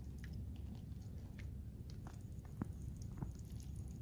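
Scattered light clicks and rustles from a small fish trap being handled and turned over, with a steady low rumble underneath.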